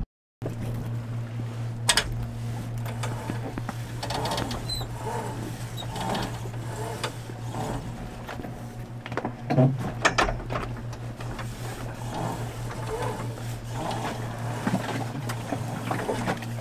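Small outboard motor running at a steady drone, with a few sharp knocks, the loudest about two seconds in and again near ten seconds.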